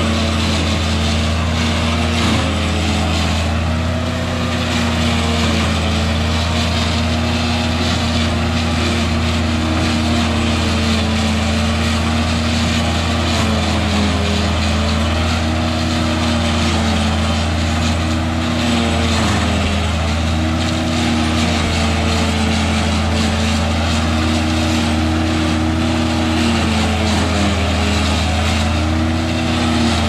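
Engine of a Lebanon silage processor running steadily under load as the machine chops standing corn and blows the silage into a wagon. Its pitch sags briefly now and then as it takes the crop.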